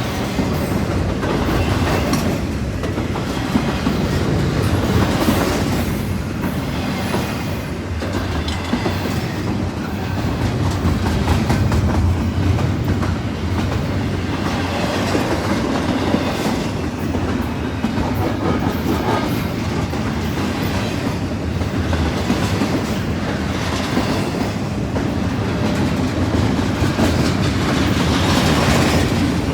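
Double-stack container cars of a long freight train rolling past at speed. There is a steady rumble with the wheels clicking over the rail joints.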